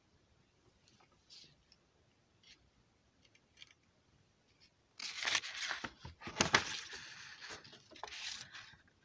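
A paper book page being turned: a few soft rustles, then from about five seconds in a longer spell of paper rustling and crinkling with several sharp crackles.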